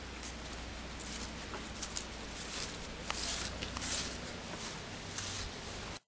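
Footsteps on a path covered in fallen maple leaves: irregular soft scuffs and crackles over a steady background hiss.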